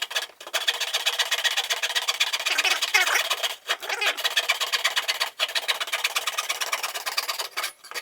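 Small handsaw cutting through a piece of wood: a continuous rasping scrape of the teeth, stroke after stroke, broken by a few short pauses.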